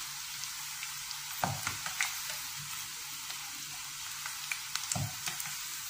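Gram-flour-battered okra pakoras frying in hot oil in a kadai: a steady sizzle full of small crackles. A slotted spatula turns them and knocks against the pan a few times, about one and a half, two and five seconds in.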